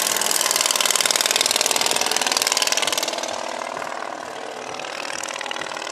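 Homemade radial engine of a giant-scale RC Blériot XI model running with a fast, even pulsing beat as the plane passes overhead. It fades after about three seconds as the plane flies away.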